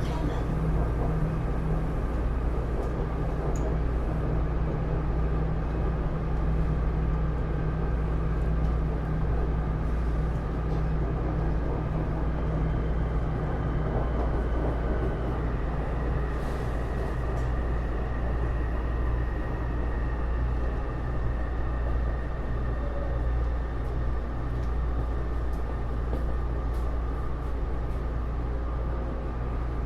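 Inside a Taipei Metro C301 metro car with Bombardier IGBT-VVVF traction, running between stations: a steady, loud rumble of wheels on track with faint motor and inverter tones. A faint high whine joins about halfway through.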